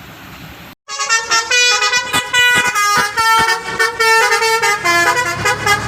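Bus basuri horn, a set of musical air horns, playing a quick tune of stepped notes; it starts abruptly about a second in.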